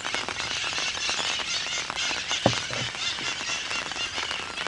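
Steady rain falling, an even hiss, with one brief low sound about two and a half seconds in.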